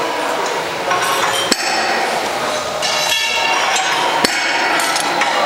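Iron weight plates on a loading pin clinking with a metallic ring, with two sharp metal clanks, one about a second and a half in and one about four seconds in, over a steady background noise.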